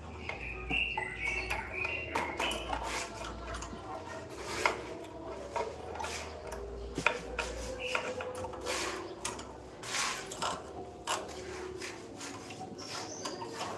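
Irregular scraping and light tapping from hand work at the joint between a corbel ornament and a masonry pillar, with a few sharper clicks about 4.5 and 7 seconds in.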